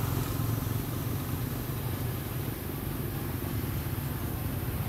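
An engine running steadily out of sight, a low even hum with no change in pitch.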